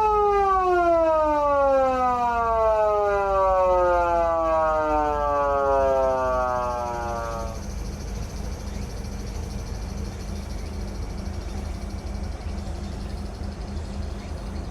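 PATLITE SAP-500BK-PV siren amplifier's foot siren, imitating a mechanical motor siren: the pitch sweeps up briefly, then winds slowly down over about seven seconds as the pedal is released, and dies out. A low steady hum is left after it.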